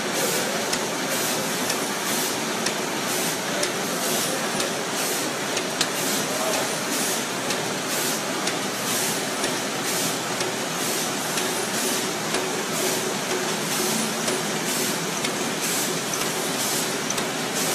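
PFM Hurricane flow-wrapping machine and its infeed conveyor running: a steady mechanical clatter with a faint hum, and an even hissing pulse about twice a second.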